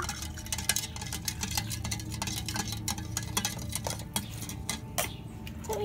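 A spoon stirring liquid in a clear plastic cup, dissolving the drink mix. The spoon makes rapid, irregular light clicks and scrapes against the cup's sides.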